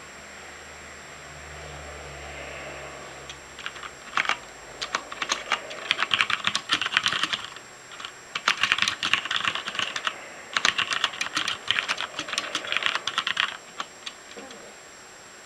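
Typing on a Noppoo Choc Mini mechanical keyboard with linear Cherry MX Black switches: rapid keystrokes in bursts of a few seconds with brief pauses between them. The typing begins a few seconds in and stops near the end.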